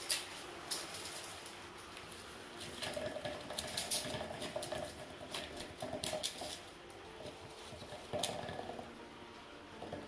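A polecat scrabbling inside a corrugated plastic drainage pipe, its claws clicking and scratching on the ridged plastic in bursts. The scrabbling is busiest from about three to five seconds in and again just past eight seconds.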